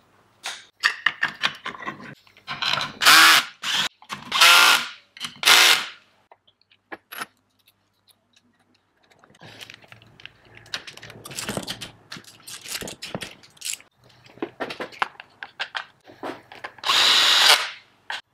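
Cordless drill-driver running in short bursts: three close together a few seconds in, and a longer run near the end. Between them come the clicks and clatter of hand tools on a steel bench.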